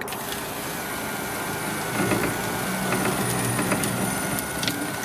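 Toyota Celica electric sunroof motor running and driving the tilt-slide mechanism closed along its rails: a steady whine that starts abruptly, with a few light clicks from the mechanism partway through.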